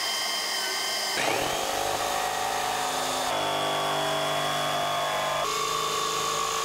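An electric power tool cutting an opening in the side of a plastic barrel. Its motor gives a steady whine that shifts pitch several times as the cut goes on.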